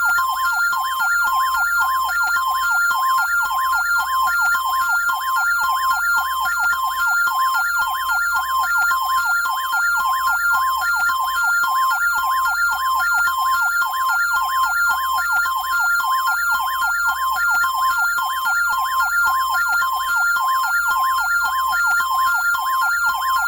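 Electronic two-tone alert sound, rapidly switching back and forth between two high pitches at roughly four changes a second, like a siren or alarm warble.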